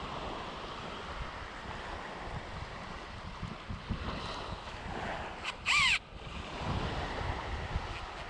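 Steady wash of surf and wind on the microphone, broken about two thirds of the way through by a single loud, harsh bird call lasting about half a second.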